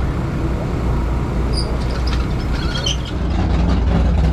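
Street stock race car's engine running with a low, steady rumble. It gets louder about three seconds in as the car pulls away across the dirt.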